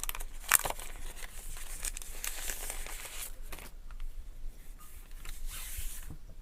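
Plastic wrapping on a new phone crinkling and tearing as it is unwrapped by hand, with a few sharp handling clicks near the start and two longer rustling swells.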